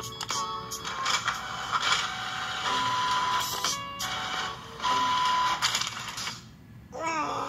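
Canon inkjet printer running a print job, its paper-feed and print-head mechanism whirring in stretches, with a steady whine twice. It is heard played back through laptop speakers.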